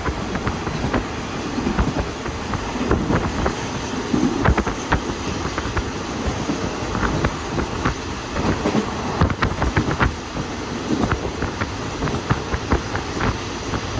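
Heard from on board, a passenger train running along the line: a steady rumble of wheels on rail with irregular clacks, knocks and rattles from the carriage.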